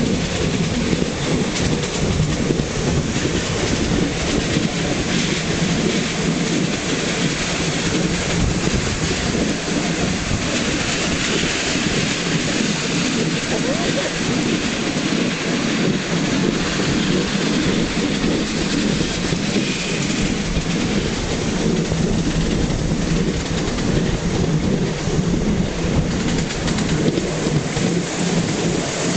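Live steam model locomotive running along the track: a steady loud rushing of steam exhaust and wheels rumbling on the rails.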